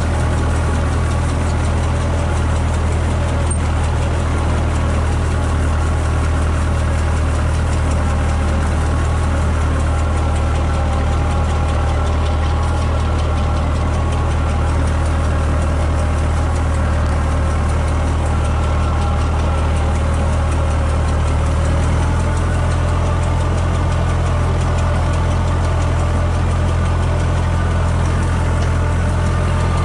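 Tractor engine running steadily under load, driving the fan of an air-blast orchard sprayer, with the sprayer's rushing air and mist over the engine hum. The engine note shifts slightly about three-quarters of the way through.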